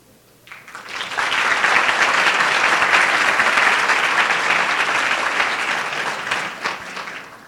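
Audience applauding, swelling in about a second in and dying away near the end.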